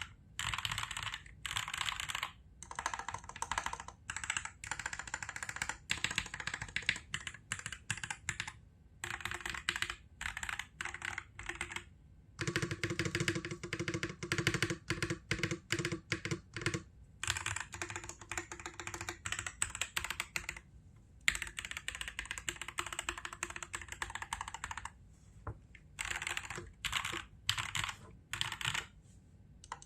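Typing on an MK870 mechanical keyboard fitted with lubed and filmed Durock L7 linear switches, a tape mod and ABS keycaps. Quick runs of keystrokes are broken by short pauses, with a deeper, fuller sound for a stretch near the middle.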